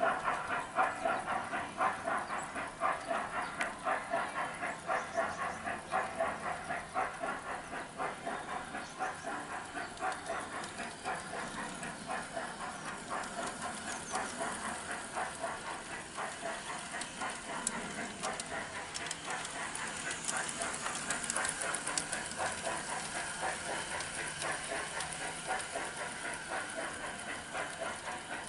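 G-scale model steam locomotive running along garden railway track, with a steady rhythmic chuffing beat and a stretch of steam-like hissing later on.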